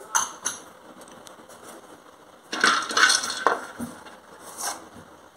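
Raw peanuts being dry-roasted and stirred with a spatula in a metal kadai, with no oil and no sizzle. Two light clicks come at the start, then a cluster of scraping, rattling strokes about two and a half seconds in, and one more near the end.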